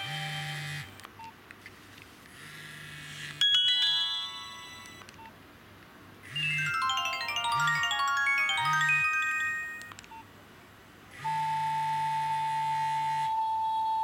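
Nokia 2310 message alert tones played through the phone's small speaker, one after another as the list scrolls. There is a short burst of notes about 3.5 s in, a cascading run of quick notes from about 6 to 10 s, then a steady held tone starting about 11 s in.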